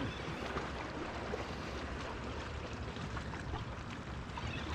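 Steady outdoor wash of wind and water on an open boat, with a few faint ticks.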